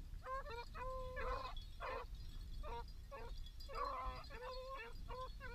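A pack of beagles baying on a rabbit's trail: many short, overlapping bawls, several dogs giving tongue at once, repeating throughout.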